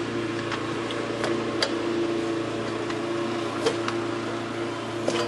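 A steady low electrical hum, with a few light clicks and taps from the refrigerator's back access panel and its screws being handled.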